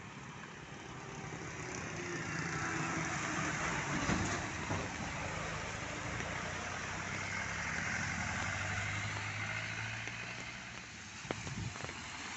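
Farm tractor with a loaded trailer driving past on a wet road: a steady low engine hum with tyres hissing through standing water, swelling as it nears and fading as it goes. A few sharp knocks come near the end as a car follows, with rain hiss underneath.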